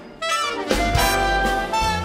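Jazz big band playing: after a brief break, the band comes back in on a sharp accent, with the brass section over double bass.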